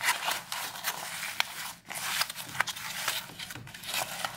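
Hands handling a small fabric purse while working a slider onto its zipper: fabric rustling with irregular small clicks and scrapes from the zipper.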